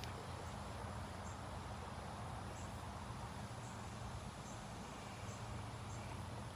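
Outdoor ambience: steady background noise with a low hum under it, and faint short high chirps about once a second.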